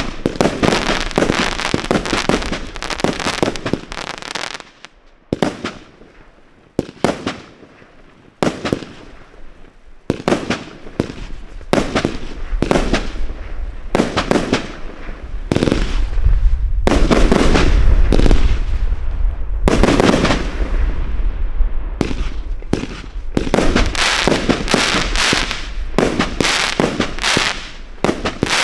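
A 68-shot compound fireworks cake firing: a rapid series of shots launching and bursting overhead as sharp bangs. There is a brief lull a few seconds in, and the heaviest, loudest volley comes around the middle.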